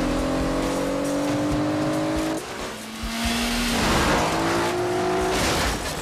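Cars speeding on a dirt road with engines revving hard, their pitch climbing steadily over the first couple of seconds, then a fresh rising rev after a short break. About four seconds in there is a loud rush of tyres on gravel and dirt.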